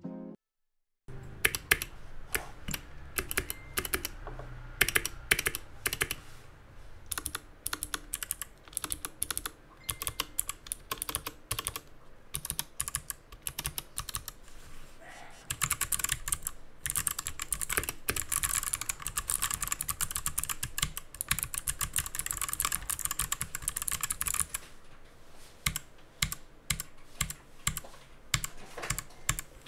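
Typing on an AKKO Acrylic 87 (ACR87) mechanical keyboard with its stock clicky switches, unmodded: a rapid, uneven clatter of keystrokes. It starts about a second in and gets faster and denser about halfway through.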